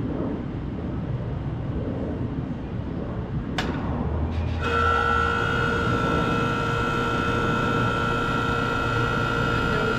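Outdoor Trane central air-conditioner condensing unit starting up: a sharp contactor click about three and a half seconds in, a low hum as the compressor starts, then the unit settles into a steady running sound with a hum and a higher whine. Other condensing units run in the background before it.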